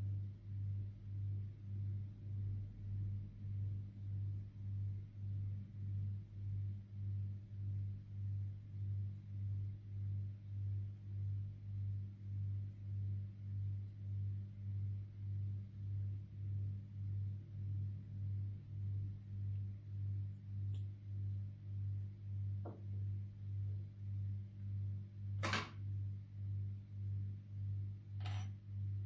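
A low, steady hum that swells and fades nearly twice a second, with three brief sharp clicks in the last seven seconds, the middle one the loudest.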